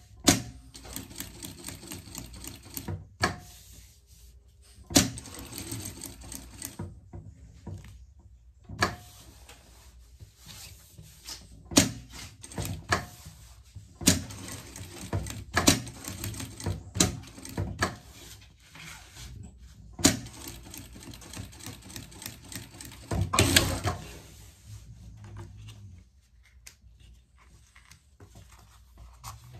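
Table-mounted sewing machine stitching a seam through raincoat fabric in several runs of fast, even stitching that start and stop, with sharp clicks in between.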